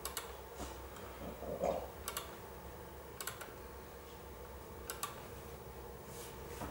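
Computer mouse clicking, a handful of light clicks, mostly in quick pairs, spaced a second or two apart.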